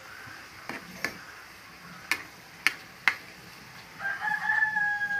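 A rooster crowing once, a long drawn-out call beginning about four seconds in. Before it come a few sharp knocks, the loudest just before the crow.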